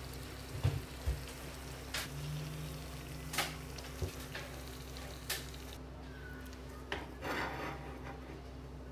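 Potato donuts deep-frying in a pan of hot oil, the oil sizzling steadily, with scattered sharp clicks and knocks as the donuts are lifted out on a wooden skewer. The sizzling drops away about six seconds in.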